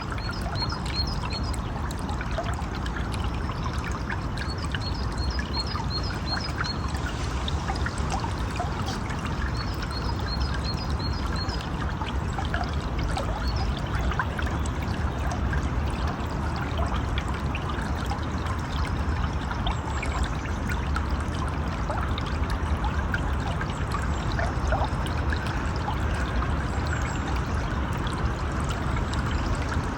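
River water flowing steadily, a continuous splashing, pouring rush. Three short runs of quick, high chirps come in over it in the first dozen seconds.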